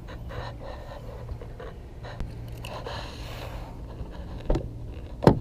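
Breathing close to the microphone over a steady low hum, then two sharp clicks about a second apart near the end, the second the louder, as the door handle of a 2017 Audi A4 is pulled.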